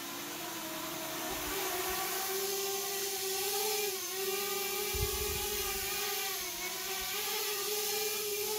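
HappyModel Crux 3 micro FPV quadcopter's brushless motors and propellers whining steadily as it lifts off and hovers, the pitch climbing at first and then wavering up and down with the throttle. It now flies, its props refitted to match the reversed motor directions.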